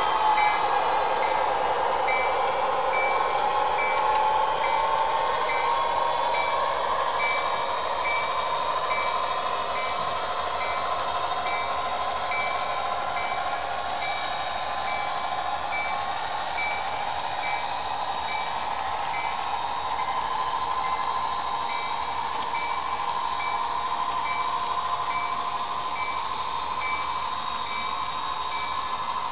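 HO-scale model train running on a layout, a steady electric whine that drifts slightly in pitch. Over it a high electronic ding repeats about once a second, pausing briefly about two-thirds of the way through and stopping near the end.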